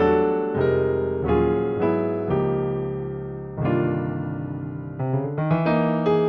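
Piano or electric piano playing struck chords, one every half second or so at first, then a longer held chord, with quicker notes near the end.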